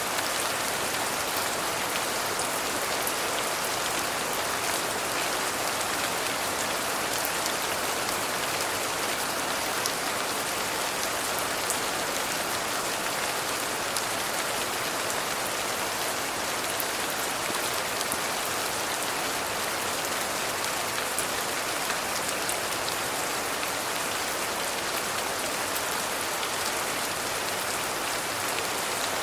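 Steady rain falling: an even, dense hiss with many small drop taps scattered through it.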